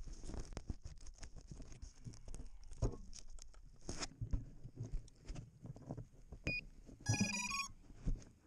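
Close handling noises as an FPV quadcopter is set down in dry grass: clicks, taps and rustles. Near the end the quadcopter gives a short run of stepped electronic beeps, its startup tones.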